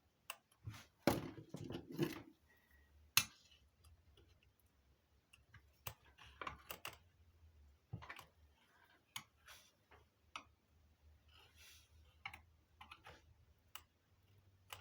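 Scattered clicks, taps and small knocks from parts of an old radio telephone being handled as a circuit board is worked loose, with the sharpest click about three seconds in. A faint steady low hum sits under the clicks.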